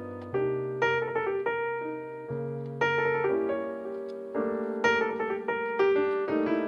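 Background piano music: single notes and chords struck at an easy pace, each left to ring and fade.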